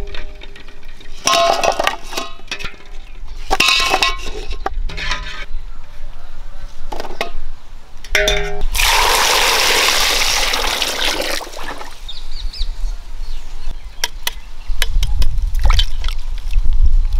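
Metal vessels and utensils clinking and knocking during cooking, with water pouring for about three seconds midway.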